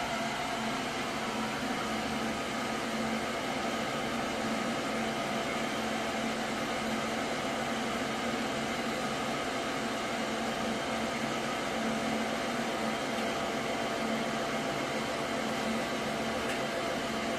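Swimming-pool filter pump running steadily: an even motor hum with a hiss of water rushing through the pipes, while the suction line's ball valve is closed little by little.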